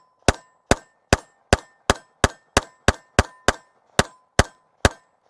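Walther PPQ M2 Q4 TAC 9mm pistol firing a rapid string of about thirteen shots, roughly three a second. A faint ringing tone carries between the shots.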